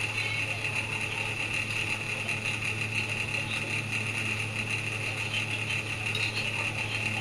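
A steady machine hum with a high, even hiss above it, like a small motor or fan running.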